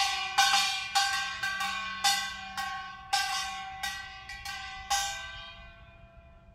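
Kkwaenggwari, a small Korean brass gong, beaten hard and unevenly about twice a second to scare birds off a sown bean field, each strike ringing bright and metallic. The last strike comes about five seconds in and rings away.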